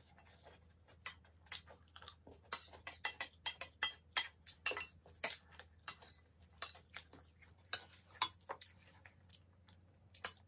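Metal spoons clinking and scraping against ceramic plates while eating, a run of many light, irregular clicks.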